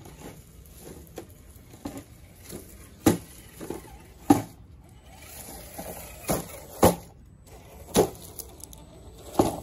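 Traxxas TRX-4 RC crawler clunking down stone steps: a string of irregular sharp knocks as it drops over the ledges, over a faint steady high-pitched whine.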